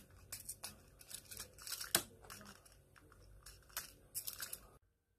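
Irregular crunching, crackling and tearing clicks in quick succession, the loudest about two seconds in, cutting off suddenly near the end.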